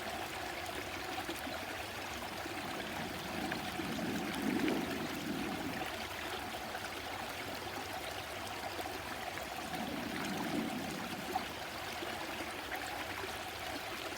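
Stream water flowing steadily, a continuous rushing trickle.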